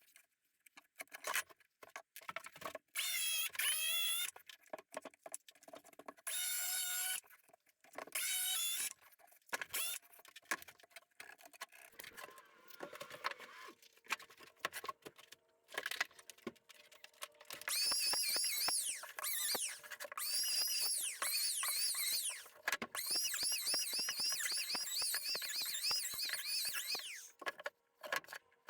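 Workshop handling sounds: scattered clicks, knocks and clatter, with repeated bursts of high-pitched squeaking, long and nearly continuous in the second half.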